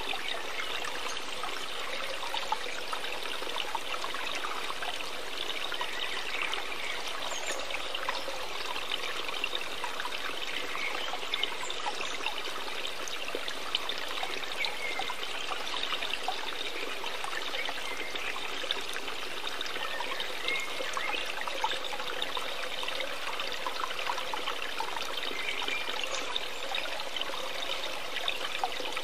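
Running water trickling and bubbling steadily, like a small stream.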